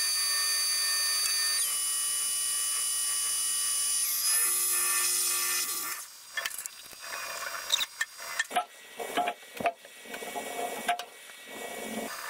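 Precision Matthews 1440TL lathe running with a steady high whine while taking a cut on a 4140 steel hub. The whine steps down in pitch twice before the machine stops about six seconds in. After that come irregular knocks, clicks and rubbing of hand work at the machine.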